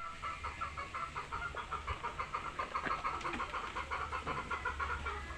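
A civet giving a rapid, steady run of chicken-like clucks, about five a second.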